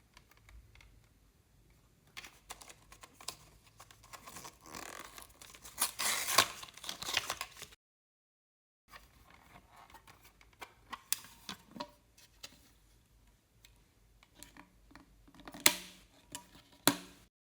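Slime being stretched and worked by hand, with irregular sticky crackles, tearing sounds and small pops. The sound drops out completely for about a second partway through.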